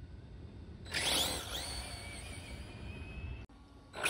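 Losi 22S RC drag car's electric motor and drivetrain whining as the car launches: the pitch sweeps up sharply about a second in, then holds high and nearly steady as it runs, and cuts off abruptly near the end.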